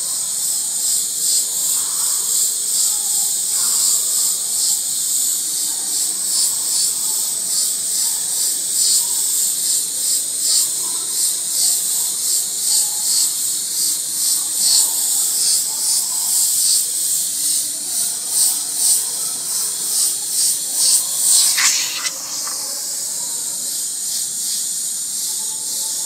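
Airbrush spraying paint in short, quick bursts as the trigger is worked for each dagger stroke, a high hiss that swells and falls about once or twice a second. A little after twenty seconds the bursts stop and a steadier, slightly quieter hiss of air continues.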